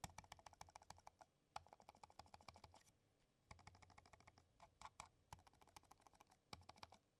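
Cherry DW2300 low-noise mouse buttons pressed hard, in quick runs of faint, muted clicks. The silent switches keep even hard presses very quiet.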